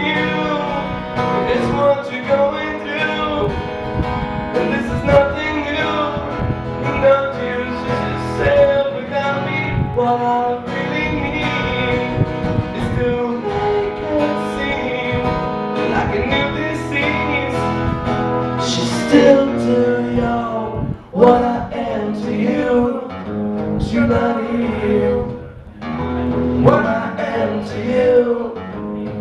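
Two acoustic guitars strummed together in a live performance of a song, with a brief pause in the playing about two-thirds of the way through.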